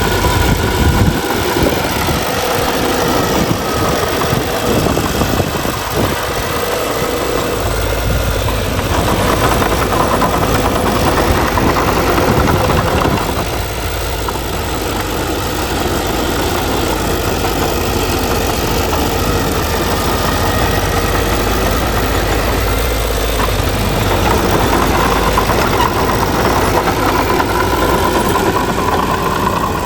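Heavy diesel engines of earthmoving machinery, a bulldozer and dump trucks, running steadily, easing off briefly about halfway through.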